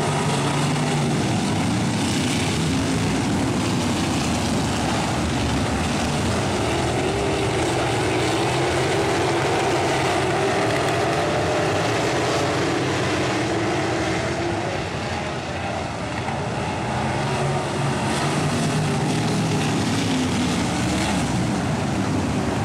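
A field of sprint cars' V8 engines racing together on a dirt oval. Several engines are heard at once, their pitch rising and falling as they accelerate out of the turns and pass. The sound eases slightly about two-thirds of the way in, then comes back up.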